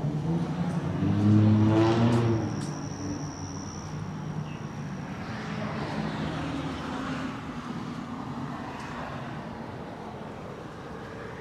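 City street traffic: a car accelerates past, its engine note rising and loudest about two seconds in, with a thin high squeal for a few seconds after it, then more vehicles passing with a steady tyre and engine hiss.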